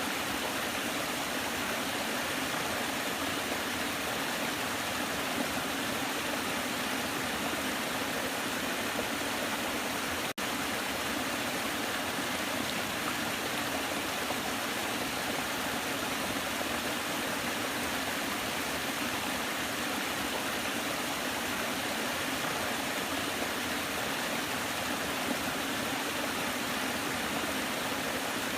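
Waterfall rushing steadily, an unbroken hiss of falling water, with a momentary dropout about ten seconds in.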